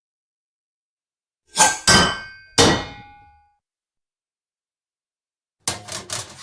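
Metal pots and pans clanging: three ringing strikes about a second and a half in, then a quick clatter of four or five knocks near the end.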